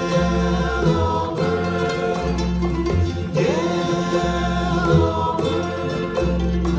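Ukulele orchestra playing with a walking bass line, while a group of voices sings along.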